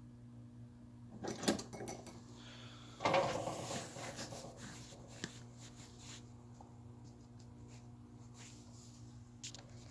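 Handling sounds: a few sharp clicks about a second in, then a louder clattering rustle about three seconds in that fades away, over a steady low electrical hum.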